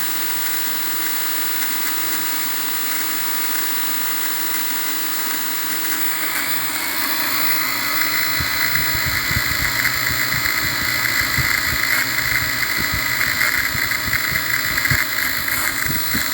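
Drone's electric motors and propellers running with a steady, multi-toned whine, the strange noise the owner is worried about. It grows louder about seven seconds in, with a stronger high whine and irregular low thumps.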